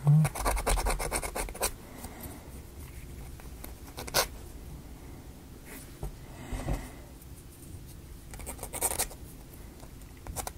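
Small laser-cut plywood parts being handled and fitted together: light clicks and scratchy rubbing, busiest in the first second and a half, with one sharp click about four seconds in and short scraping bursts later on.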